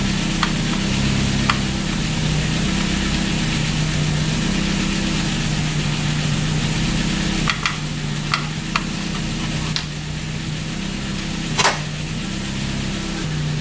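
A handful of sharp metallic clicks and clinks, hand tools working on the engine, over a steady low hum.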